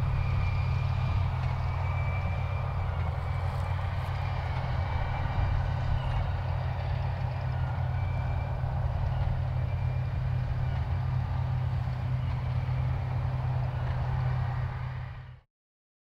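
Ford 8730 tractor's six-cylinder turbo diesel running steadily under load as it pulls a Hesston big square baler through the swaths, a low, even drone with the baler working behind it. The sound fades out quickly near the end.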